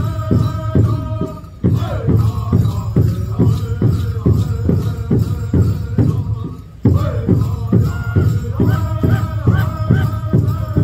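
Men's chorus chanting a buffalo dance song over a steady drumbeat of about three beats a second. The song and beat fade off briefly about one and a half seconds in and again near seven seconds, then come back in sharply.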